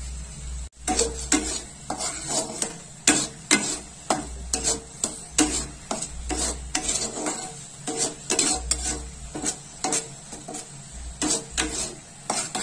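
A spatula scraping and stirring thick boiled mango pulp around a metal kadai, at about two scrapes a second, as the pulp is cooked down until its liquid thickens.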